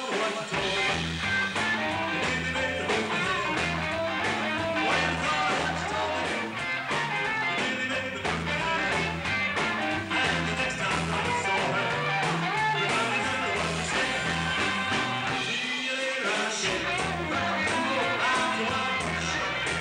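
Live rock and roll band playing: electric guitar over a walking bass line and drums, with a steady beat. The bass drops out for a moment about sixteen seconds in.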